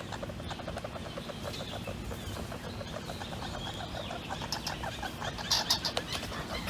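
Red squirrel chattering: a rapid rattle of many short repeated notes, growing louder and sharper near the end.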